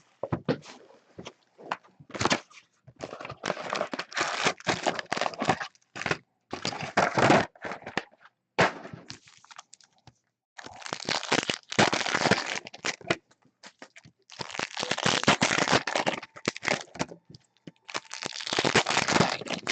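Foil trading card pack wrappers being torn open and crinkled, in repeated bursts of tearing and rustling with short pauses between them.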